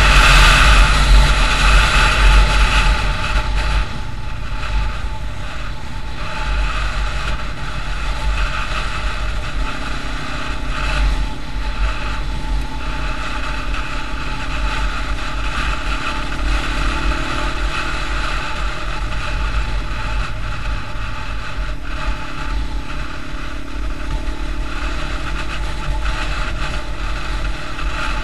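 A vehicle driving at road speed: steady rumble of wind and road noise with an engine running underneath. Loudest for the first few seconds, then settling to a steady, lower level after about four seconds.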